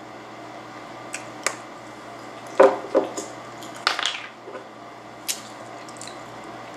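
Scattered light handling noises of a takeout meal: soft squishes of a wrapped burrito and clicks and knocks against takeout containers. A hot sauce bottle is picked up and handled around the middle.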